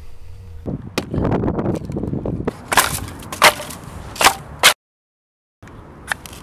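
Dry, dead wood being chopped: cracking and splintering, then four sharp strikes in quick succession. After a brief silent gap, a low steady background with one light click near the end.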